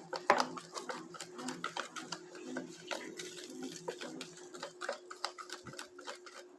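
Fast, irregular clicks and taps of a kitchen utensil against a bowl during food preparation, over a faint steady hum.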